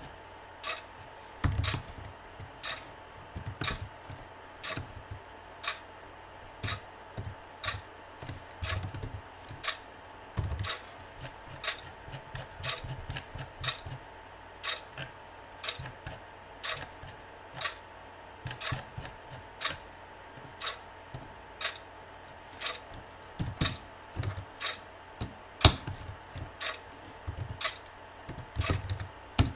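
Typing on a computer keyboard: runs of keystroke clicks at an uneven pace, with one sharper, louder click about three-quarters of the way through.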